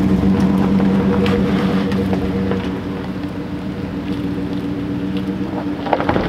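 Chevrolet Silverado pickup truck driving slowly away up a dirt track, its engine running with a steady hum that fades as it goes, with scattered crackles from the tyres on the icy ground.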